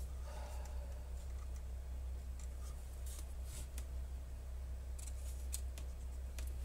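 Faint scattered clicks and rubbing of a partly disassembled Blackmagic Pocket 6K camera body being handled and turned over, over a steady low hum.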